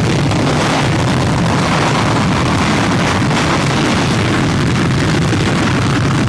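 F-16 Fighting Falcon's turbofan engine running during a ground engine test, the jet held in place by a trim pad anchoring system: a loud, steady jet roar with a deep rumble underneath.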